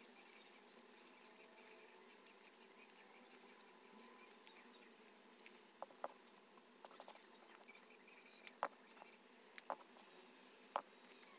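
Quiet snipping of scissors trimming the edge of a sewn fabric piece, then a few sharp little clicks and taps in the second half as the scissors are put down and the fabric pieces handled.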